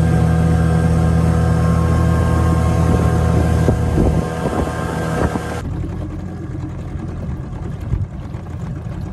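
Small outboard motor pushing a folding dinghy, running steadily at speed with a strong low engine tone. About four seconds in it drops back to a lower, slower running sound.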